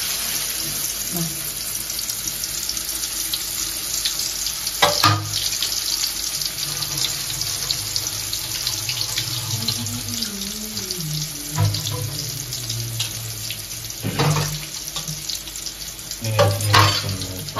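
Whole Indian halibut sizzling and crackling steadily as it shallow-fries in hot oil in an aluminium kadai, with a couple of sharp knocks.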